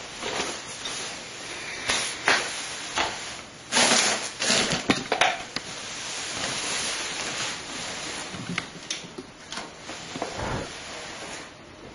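Rustling, scraping and scattered knocks and clicks of cables and computer hardware being handled, with a loud cluster of knocks about four to five seconds in.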